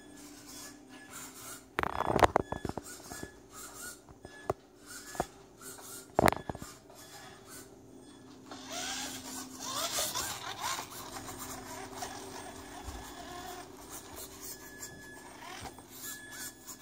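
Traxxas Teton RC monster truck with an electric motor driving over a fabric-covered ramp: sharp clattering knocks about two seconds in and again about six seconds in, then the motor whining up and down in pitch with the tyres scrabbling and rubbing on the mat for a few seconds.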